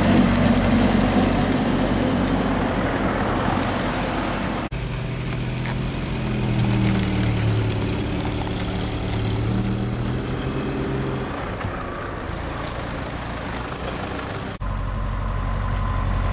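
Early Land Rover Series I's engine running as it drives slowly past. After a cut about five seconds in, a car engine idles steadily with high chirps above it, and after another cut near the end only a steady low hum remains.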